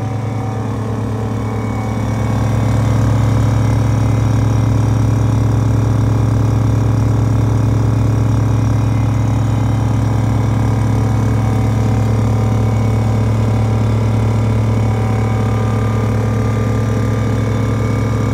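Twin air compressors running together, pumping up a 5-gallon air tank: a steady, low mechanical hum that grows louder about two seconds in.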